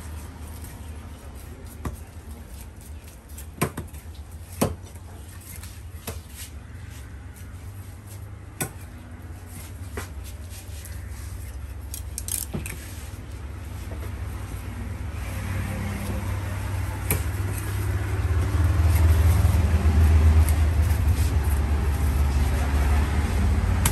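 Large knife cutting tuna on a wooden chopping block, with a few sharp knocks of the blade on the block scattered through. Under it a low rumble that swells louder in the second half.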